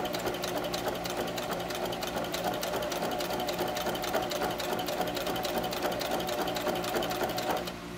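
Sewing machine running at a steady speed, stitching with a fast, even ticking, then stopping suddenly near the end.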